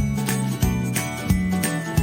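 Background music with held notes over a steady beat, about three beats every two seconds.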